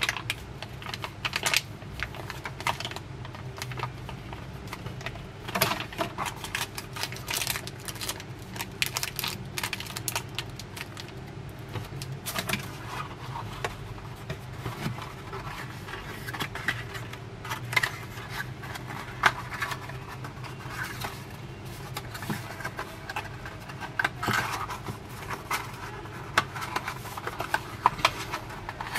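Hands handling a cardboard box and plastic packaging: a run of small irregular clicks, taps and rustles, over a steady low hum.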